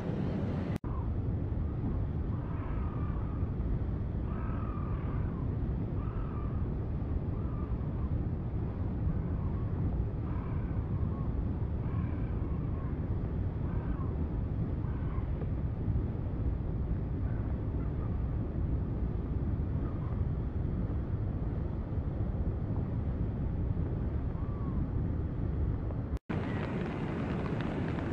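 Spring ice drift on a river: a steady low rush of floes and slush moving in the current, with wind on the microphone and faint scattered tinkling of ice. The sound cuts out for an instant twice.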